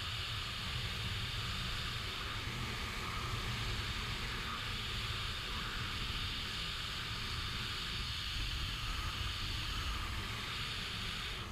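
Steady rush of airflow past the microphone of a camera worn in wingsuit flight, a low rumble under a constant hiss.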